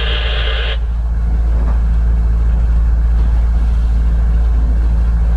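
Sailboat's engine running steadily with a low rumble. A burst of VHF radio static hiss cuts off abruptly less than a second in.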